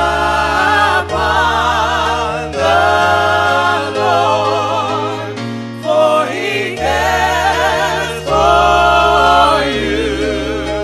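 Gospel music: sung phrases with vibrato over sustained bass notes that change every second or two.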